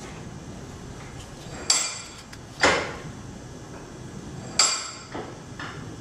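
Sharp knocks and clinks of small hand tools or metal parts being handled and set down during work on a transmission control module. There are three loud ones, about two, three and four and a half seconds in, followed by two softer ones near the end.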